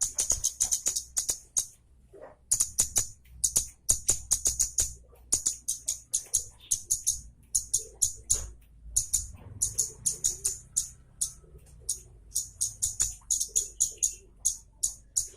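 Kemade (baret merah) songbird singing its sharp, rapid chattering song: quick runs of high-pitched ticking chips, each run about a second long, with short pauses between.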